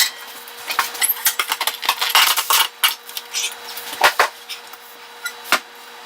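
Machined steel grinder parts clinking and clattering against each other as they are handled and unpacked: a quick, uneven run of light metallic clicks and knocks.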